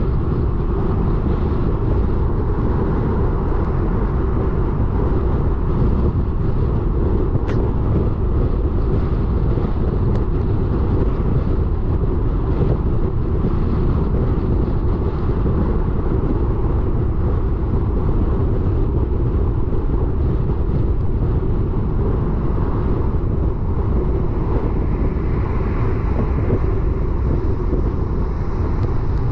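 Car driving on a wet road: a steady low rumble of tyres and engine, with a couple of faint clicks.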